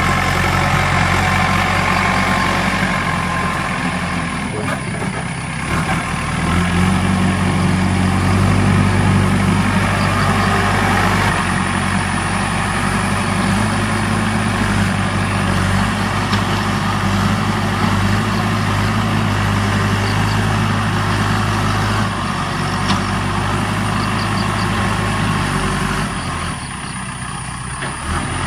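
Kirloskar diesel engine of a JCB 3DX backhoe loader running as the machine works over dug-up soil. The engine note rises and falls with the work, louder for a stretch a few seconds in and easing near the end.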